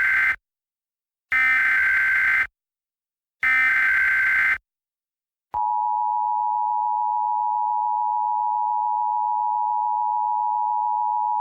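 Emergency Alert System header: the end of one burst and then two full bursts of SAME digital header data, each a buzzy electronic burst about a second long with a second's gap between them. After a click about five and a half seconds in comes the steady EAS attention tone, a continuous electronic beep. Together they mark the start of an emergency alert, here a severe thunderstorm warning.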